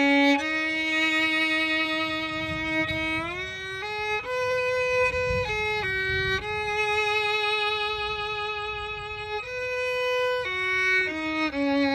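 Background music: a solo bowed fiddle playing a slow melody one note at a time, with long held notes and sliding changes of pitch, including an upward slide about three seconds in.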